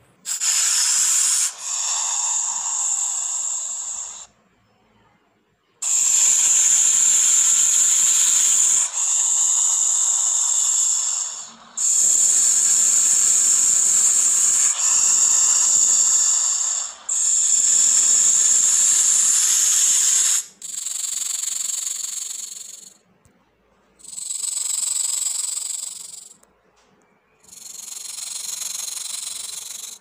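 Snake hissing sound effect: a series of about nine long, sharp hisses, each two to three seconds, with short breaks between them.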